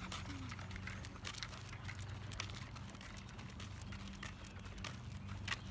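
Walking on a rough asphalt street with a leashed dog: light, irregular ticks and scuffs of footsteps and claws on the pavement, over a faint steady low hum.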